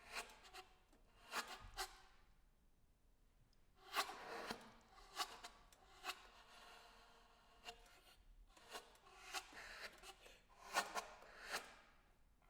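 Solo saxophone played with extended techniques: sparse, quiet key clicks and short breathy, rasping air sounds, some carrying a faint pitch.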